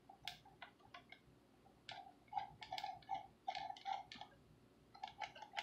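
Faint, irregular plastic clicks and ticks from a cheap hard-plastic pistol-grip RC transmitter as its steering wheel is turned by hand, busiest in the middle.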